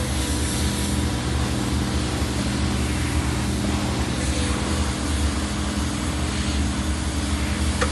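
Takeuchi TB216 mini excavator's diesel engine running steadily with a constant hum, and a short click near the end.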